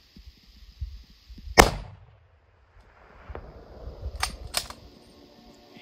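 A single hunting-rifle shot about a second and a half in, loud and sharp with a short fading tail. About two and a half seconds later come two quick sharp clicks, a third of a second apart.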